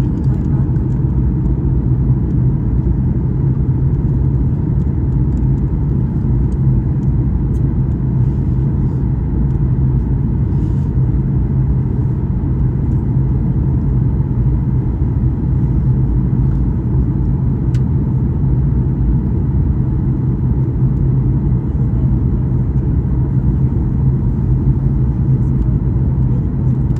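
Steady low drone of an airliner cabin: jet engine and airflow noise, unchanging in level.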